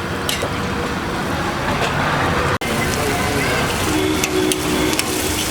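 Steady sizzling hiss with scattered crackles, like idli pieces deep-frying in hot oil on a street-food stall. The sound cuts out for an instant about two and a half seconds in.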